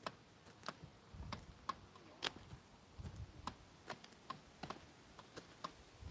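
Faint footsteps on a dry, gritty dirt path: light crunching ticks and soft thumps at an uneven walking pace.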